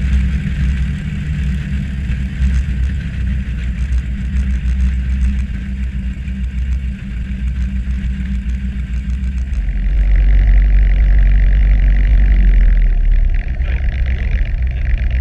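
Piper Warrior's four-cylinder piston engine and propeller running at taxi power, a steady drone. About ten seconds in, the sound turns louder and deeper, heard inside the cabin.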